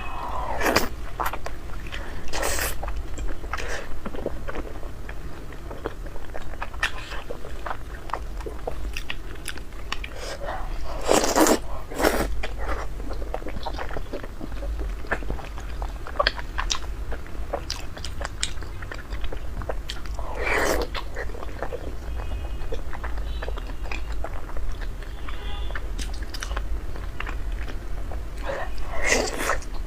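Close-miked chewing and biting of food, a dense run of small sharp wet clicks with a few louder bites spaced through.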